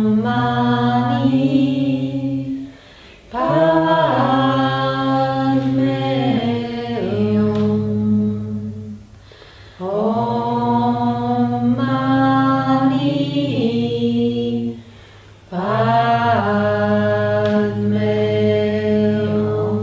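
A chanted mantra: a voice sings long held, stepping notes in repeated phrases of about six seconds, each broken by a short breath pause.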